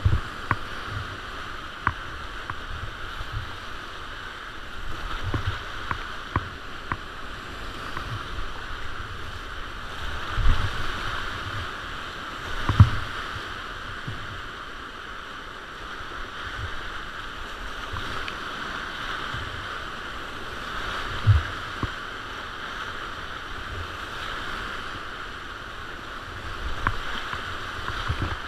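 Whitewater rushing steadily around a kayak running a rapid on a mountain river, with occasional short thumps, the strongest about halfway through and again near two-thirds in.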